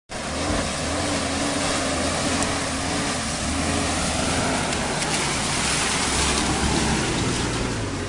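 Four-wheel-drive vehicle's engine running steadily as it drives through a shallow river crossing, with water splashing around its wheels.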